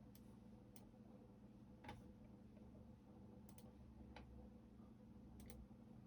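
Sparse, isolated clicks at a computer keyboard and mouse, about eight in all, two of them in quick pairs, with a faint low hum underneath.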